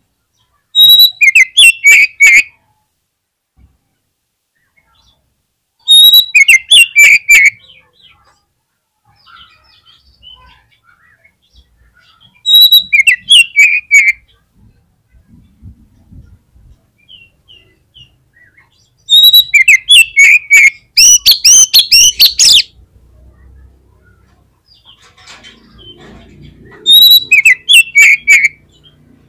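Oriental magpie-robin (kacer) singing in loud bursts of fast chirping, whistled phrases, five times at intervals of about six to seven seconds; the fourth burst is longer than the others.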